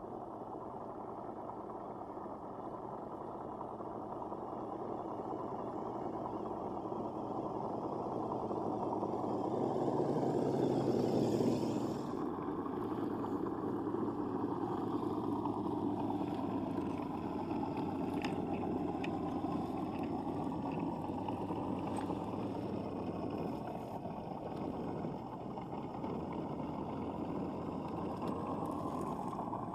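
Motor and gears of a 1/6-scale Willys Jeep RC crawler whirring as it drives, growing louder as it comes closer over about ten seconds. The sound then drops abruptly and runs on more evenly, with a few faint clicks.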